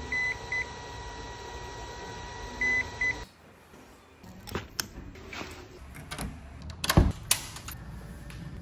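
HOTA LiPo battery charger beeping to signal that charging is done: two pairs of high beeps, each a longer beep followed by a short one, the pairs about two and a half seconds apart. After that come rustling, clicks and knocks from socks and shoes being pulled on, with the loudest knock about seven seconds in.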